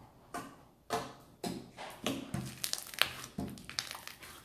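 Large mass of slime kneaded and pressed by hand, giving irregular small clicks and crackles.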